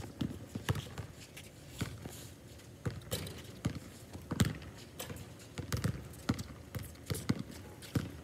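A basketball being dribbled on a hard outdoor court, a dull bounce about every half second, mixed with players' footsteps.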